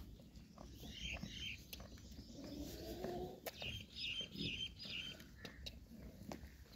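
Small birds chirping in short groups of calls, about a second in and again around four to five seconds, over faint clicks and smacks of a goat kid suckling at its mother's udder.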